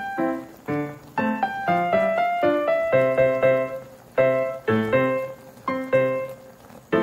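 Background piano music: a gentle melody of struck notes and chords, each note fading away before the next.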